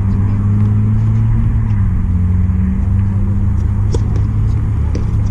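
Steady low engine hum whose pitch drifts slightly, with two short sharp knocks near the end.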